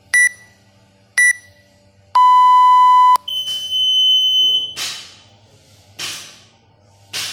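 Electronic countdown timer beeping: two short high beeps a second apart, then a long, lower beep about two seconds in that signals the start. It is followed by a held higher-pitched tone and then a run of evenly spaced thumps, about one every 1.2 seconds.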